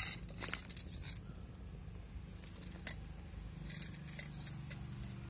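Firewood fire burning under an empty kadai with a low steady rumble and a few sharp crackles. A short rising chirp, likely a bird, comes twice, about a second in and near the end.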